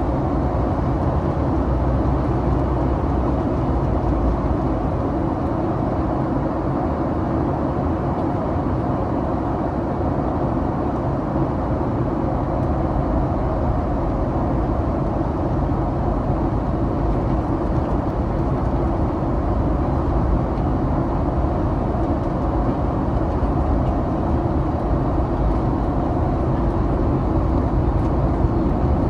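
Steady cabin noise inside a Boeing 737-800 airliner in flight: a constant low rumble of airflow and its CFM56-7B jet engines.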